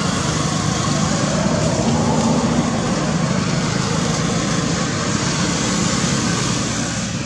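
Steady, loud background noise of motor traffic, swelling slightly a second or two in and easing near the end.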